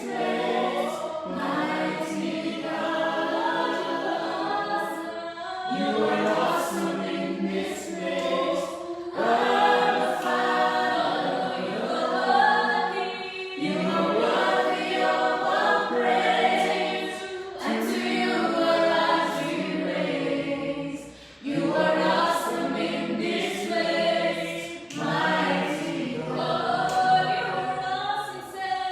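A church praise team singing a worship song together in phrases of a few seconds, with a short break about 21 seconds in.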